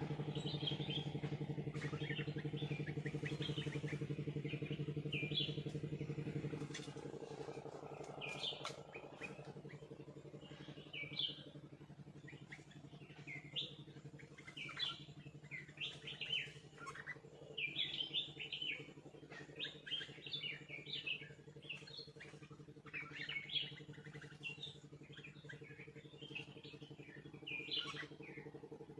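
Many birds chirping in short, quick calls throughout, over a steady engine drone that is loud for the first six seconds or so and then drops to a lower level.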